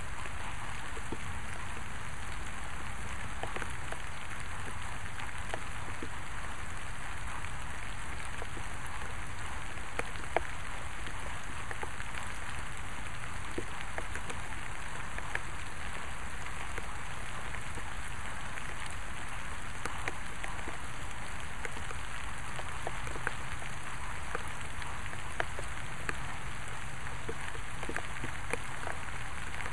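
Steady rain falling, with scattered sharper ticks of individual drops; the loudest tick comes about ten seconds in.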